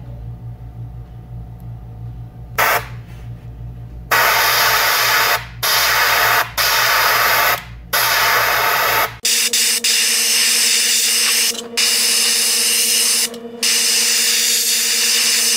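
Airbrush spraying paint in a series of hissing bursts of one to two seconds each, with short breaks as the trigger is let off. A low steady hum runs under the first part and cuts off suddenly about nine seconds in; a fainter steady hum takes its place while the spraying goes on.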